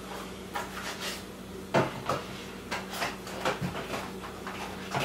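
Groceries being handled and put away: a string of light knocks, clicks and clatters of packages and containers being picked up and set down, the sharpest about two seconds in, over a low steady hum.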